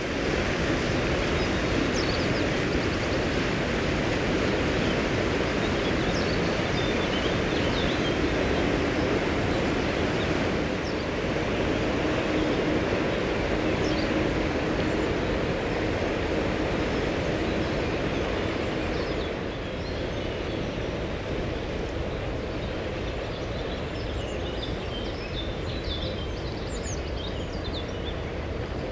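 Steady wind noise buffeting the microphone, with a faint steady low hum through the middle and a few short high chirps near the end.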